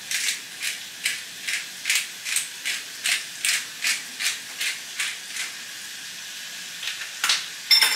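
Pepper grinder being twisted, a steady run of ratcheting clicks about two and a half a second for some five seconds, over a faint frying sizzle. A sharp clatter near the end.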